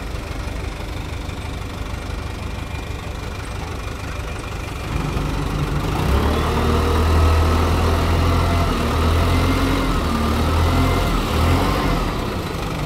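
Diesel dump truck engine idling. About five seconds in it speeds up and holds steady to drive the hydraulic hoist while the tipper body rises, then drops back a little near the end.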